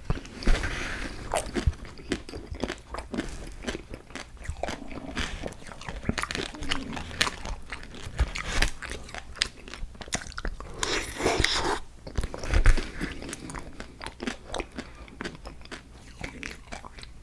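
A person biting and chewing food up close to the microphone, with many crisp crunches throughout and a louder run of crunching about two-thirds of the way through.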